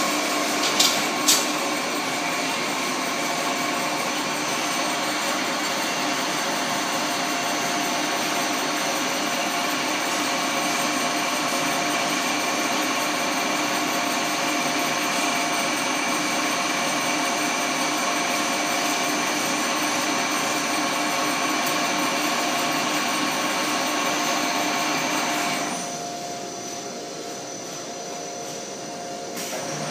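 Angeli AV-TZ vertical rotary coiler running steadily as it winds thin wire into coils: a constant machine noise with several steady tones. Two sharp clicks about a second in; near the end the noise drops for a few seconds, then picks up again.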